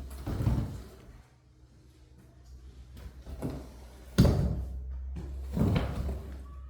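A few dull thumps, the sharpest about four seconds in, over a low steady hum.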